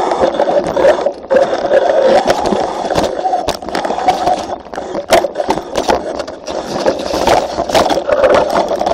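Mountain bike riding fast down a rough dirt trail: a continuous rush and rattle of tyres and bike, broken by frequent sharp knocks as it hits bumps and roots, picked up by an on-board camera.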